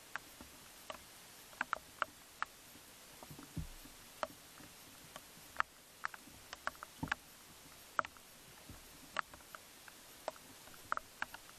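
Faint, irregular sharp clicks and ticks, about one or two a second, over a steady hiss, with a couple of soft low thumps.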